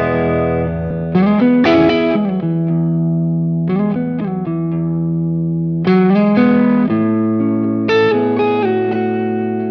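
Electric guitar through an Amonito tube amp driven by a Gladio Cornerstone preamp pedal, with a mildly overdriven tone. Chords and double-stops are struck about every second or two and left to ring, some with small bends.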